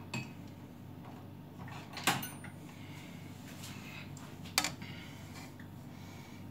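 Two sharp clacks of kitchen utensils knocking as they are taken off a hanging utensil rail, about two seconds and four and a half seconds in, over a faint steady low hum.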